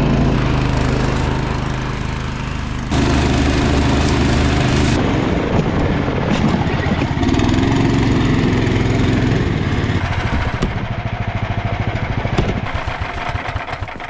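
Snowdog tracked tow machine's small engine running steadily as it pulls a sled through the snow. The sound changes abruptly a few times.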